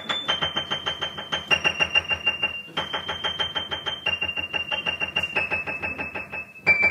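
A musical interlude on an electronic keyboard: fast repeated chords, about eight a second, under a high held note that steps to a new pitch every second or so, mostly downward.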